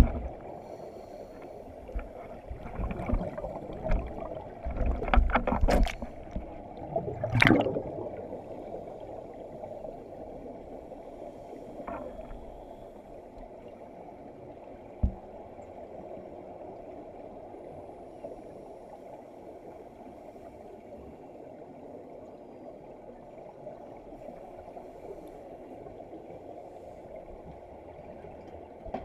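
Underwater sound in a swimming pool, heard muffled through a camera housing: gurgling bursts of bubbles from scuba divers exhaling through their regulators during the first several seconds. After that comes a steady low hiss, with one sharp knock about halfway through.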